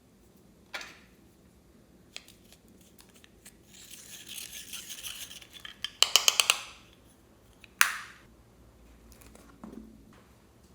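Hard tools and containers being handled during slime making: a sharp click, a rustling scrape, then a quick run of about six sharp clicks and one more click a second and a half later.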